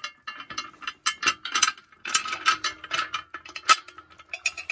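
Steel M10 bolt and nut clicking and rattling against a sheet-metal plate as the nut is threaded on by hand, a quick run of small metallic ticks and knocks.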